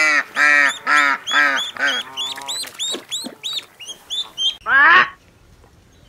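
A mallard hen quacking about five times in quick succession, followed by a rapid run of high, thin duckling peeps. About five seconds in there is a single loud, harsh squawk from a blue-and-gold macaw.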